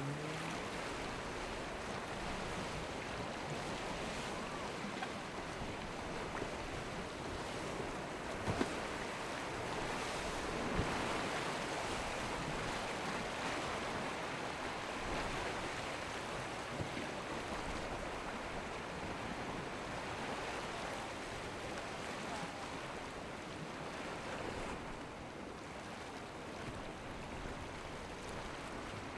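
Steady rush and splash of choppy sea water and boat wash as motor yachts push through the waves, with wind on the microphone.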